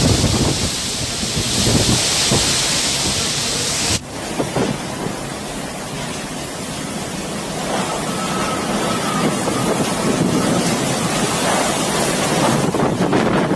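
Gale-force wind of a tropical cyclone blowing hard, with heavy wind buffeting on the microphone. About four seconds in it drops suddenly and changes character, then keeps up a steady roar.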